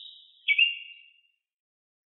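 Ruby-crowned tanager (tiê-preto) singing: clear, short notes that alternate between a higher and a lower pitch, each fading away quickly; the last note comes about half a second in, then the song stops.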